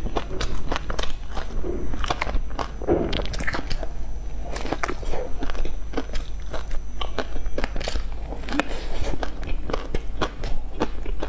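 Close-miked chewing and biting of a crunchy crumb-coated bun flecked with seaweed: a dense, irregular run of crisp crunches and mouth clicks.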